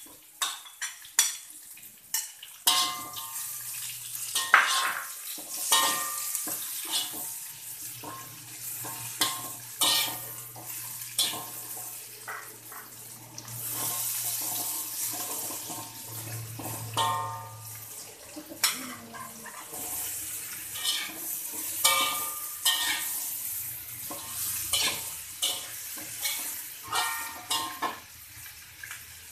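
Metal spatula scraping and knocking against a metal wok, in quick irregular strikes with a brief metallic ring, while onion rings stir-fry over a steady sizzle of hot oil.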